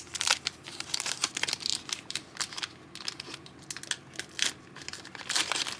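Trading-card pack wrapper crinkling and crackling in irregular bursts as it is handled and opened.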